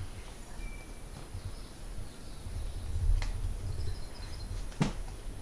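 Two sharp knocks about a second and a half apart, the second louder, over a low rumble of handling noise. Faint bird chirps sound near the end.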